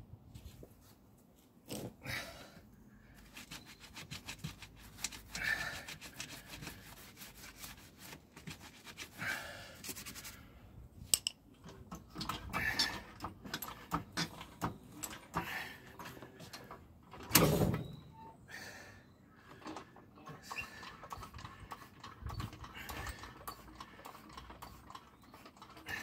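Hands working a car tyre's bead on an alloy wheel without a machine: scattered knocks, scrapes and clicks of rubber and metal, with one louder knock about two-thirds through.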